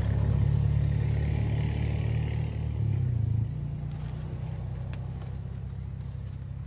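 A vehicle engine running with a low, steady rumble; it drops in level about halfway through and then slowly fades. A couple of faint clicks come near the end.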